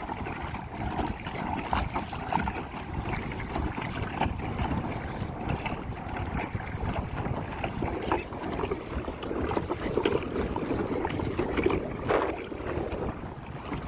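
Water splashing and lapping around a kayak on open water, with wind buffeting the microphone.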